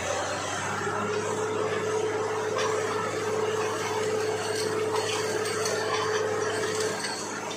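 Borewell drilling rig's machinery running steadily, a rushing noise under a constant hum; the hum and a low drone cut out about seven seconds in.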